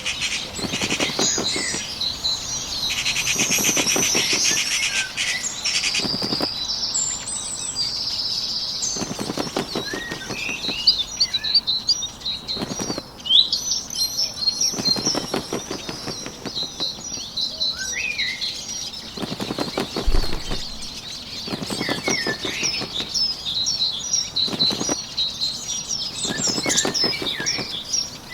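Bird sound effects: small songbirds chirping and twittering, with a short burst of rapid wing-flapping every two to three seconds.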